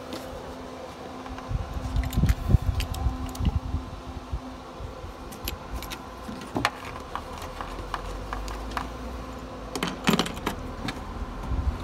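A bunch of keys jangling in a hand, with a few knocks from handling a plastic under-bonnet cover, over a steady electrical hum. The jangling comes in two spells, about two seconds in and again near the end.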